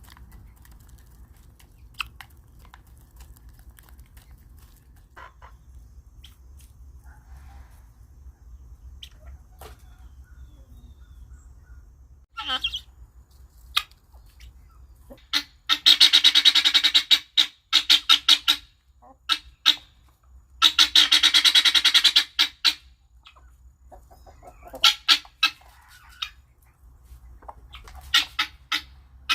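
Guinea fowl calling in harsh, rapid chattering bouts. Two long, loud bouts of about two seconds each come in the middle, with shorter calls and scattered clicks before and after.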